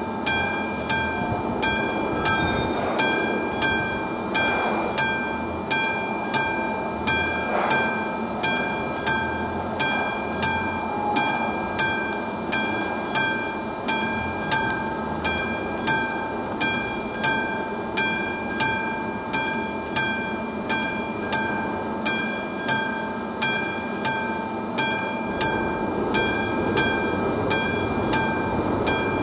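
Classic mechanical bell of an AŽD 71 level-crossing signal ringing steadily, about one and a half strikes a second, each strike ringing on. It is the warning that a train is approaching and the crossing is closed.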